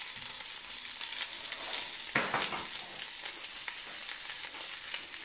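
Chicken roulades frying in melting butter in a nonstick pan: a steady sizzle with fine crackling, and a brief louder burst about two seconds in.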